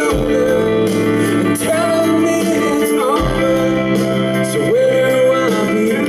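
Rock band playing live: a male singer's vocal line over sustained guitar chords, with a deep bass note landing about every three seconds.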